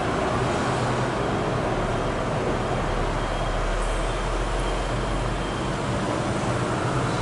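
Steady city traffic noise: road vehicles on the street below the elevated line mixed with a Kaohsiung MRT train running away into the distance, with no sudden sounds.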